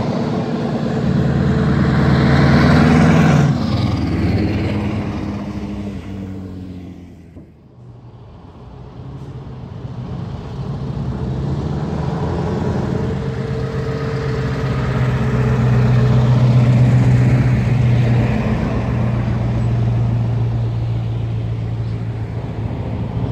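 Classic heavy trucks driving past one after another, their diesel engines running. The first fades away within the first several seconds, leaving a brief lull, then the next truck's engine grows louder with a steady deep note, loudest about two-thirds of the way through and easing off near the end.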